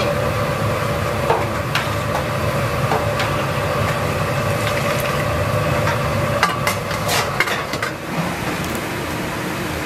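Metal ladle stirring a large pot of boiling broth, clinking against the metal pot now and then and most often about six to seven and a half seconds in, over a steady rush and hum.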